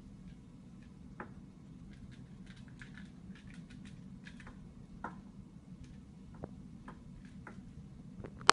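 Faint, scattered light clicks and taps over a low, steady room hum, with one sharp, louder click at the very end.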